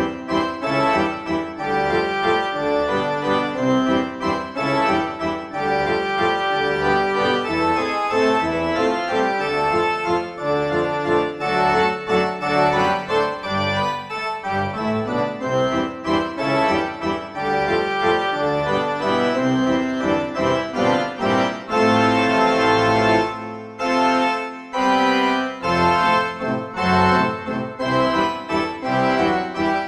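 Background music: a keyboard tune, organ-like, playing a continuous run of held notes with a short dip in level a little past the middle.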